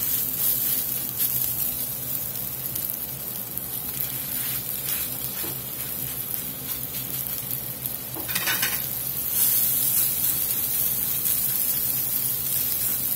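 Raw ground-beef patties sizzling in hot vegetable oil in a cast-iron skillet as they are laid in one after another and pressed down to sear over medium-high heat. The sizzle starts suddenly with the first patty and gets louder about two-thirds of the way through as more patties go in.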